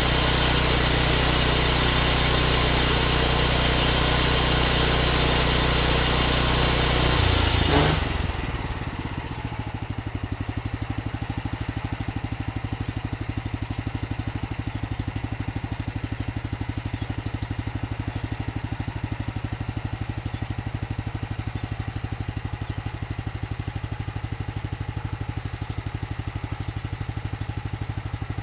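Vallee Big Red band sawmill running flat out with a loud, high hiss from the blade, then throttled down about eight seconds in to a steady, evenly pulsing engine idle.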